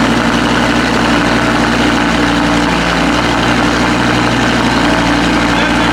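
Audi R8's 5.2 FSI V10 running at a steady raised cold-start idle through a freshly fitted Supersprint exhaust, loud and even. The fast idle is the cold-start mode that heats the catalytic converters quickly.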